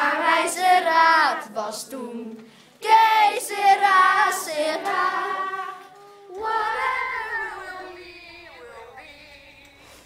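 Children singing together, in three phrases of a few seconds each with short breaks between them, the last one fading out.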